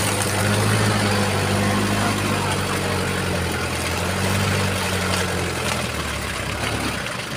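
Off-road 4x4 engine idling steadily at a low pitch, dropping away shortly before the end.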